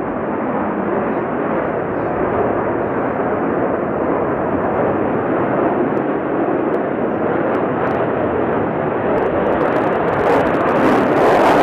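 Sukhoi Su-35 fighter in a flying display, its twin AL-41F1S turbofan engines making a steady rushing jet noise that grows a little louder toward the end.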